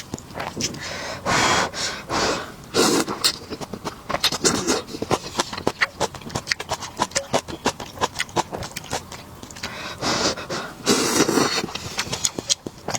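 Noodles being slurped in several drawn-out bursts, among many small clicks and taps of utensils.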